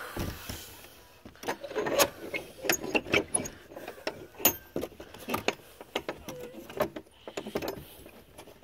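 A run of irregular clicks and knocks, several a second, from something small being handled close to the microphone.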